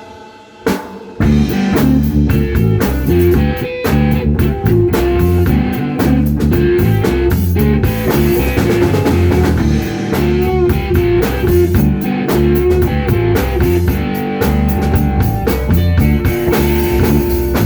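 Instrumental rock intro with guitar and drum kit over a steady beat, kicking in about a second in after a brief quiet start.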